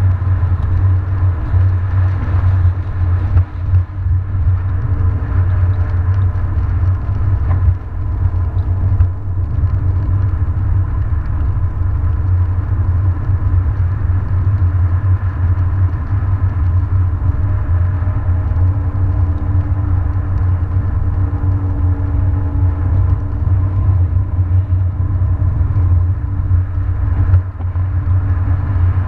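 Steady low rumble of a car's road and engine noise at highway speed, heard from inside the cabin.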